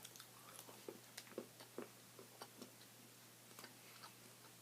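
Near silence: room tone with a few faint, short clicks scattered through it, mostly in the first two seconds.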